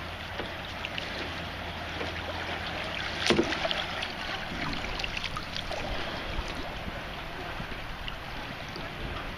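Canoe paddling on a creek: water noise around the boat with small paddle ticks, and one sharp knock about three seconds in.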